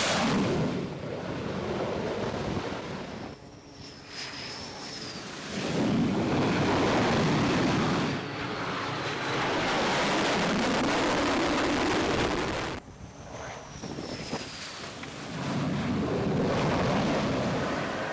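F/A-18 jet engines during carrier landings, a broad rushing noise in several stretches broken by short dips, with a faint high whine gliding across twice. Wind buffets the microphone.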